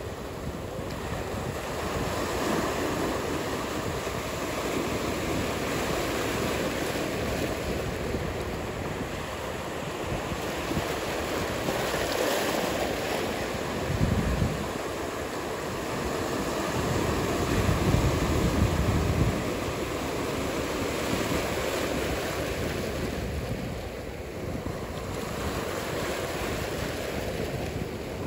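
Ocean surf washing steadily, with wind buffeting the microphone: one short gust about halfway through and a longer one a few seconds later.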